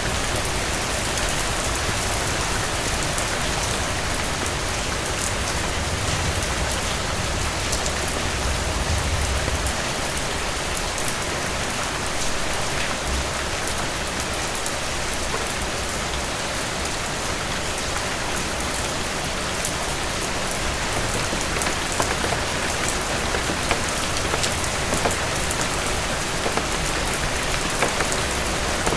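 Steady heavy rain falling, with many individual drops ticking on a surface throughout.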